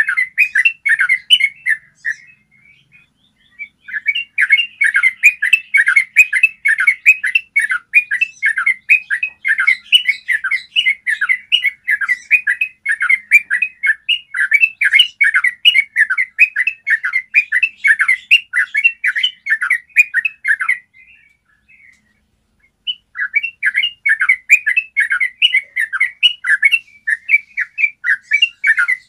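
Yellow-vented bulbul singing long, fast runs of clear chirping notes, with two short pauses: one about two seconds in and one near the end, before the song resumes.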